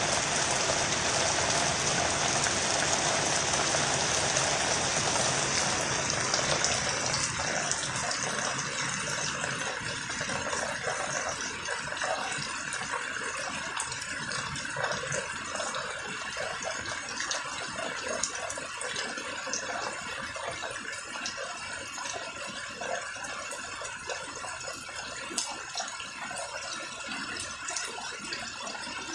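Fairly heavy rain falling on garden plants and surfaces, a dense steady hiss. It eases after about six seconds, leaving lighter rain with separate drops tapping.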